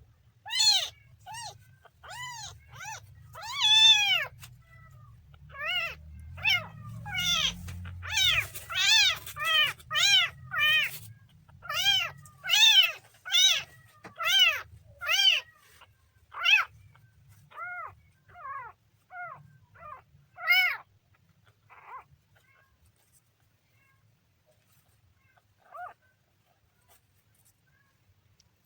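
Kitten meowing over and over in short, high, arching calls, about two a second, which stop about three quarters of the way through, with one last meow near the end. A low rumble runs beneath the first dozen seconds.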